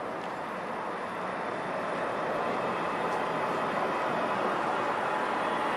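Strasbourg Eurotram running on its rails: a steady wheel-and-motor noise that grows gradually louder.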